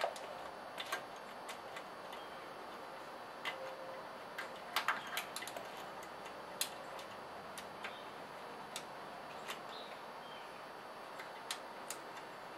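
Light, irregular metallic clicks and taps of a hand tool and small parts being worked on a garden-tractor engine's carburetor linkage, with a short cluster of clicks about five seconds in.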